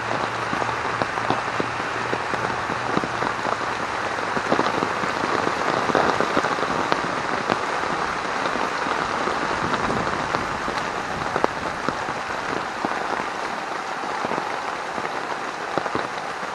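Heavy rain falling on a military poncho rigged as a tarp overhead: a steady hiss of rain with many individual drop hits.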